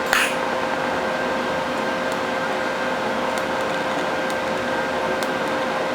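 Steady whirring hum of a fan, with a brief hiss right at the start and a few faint ticks.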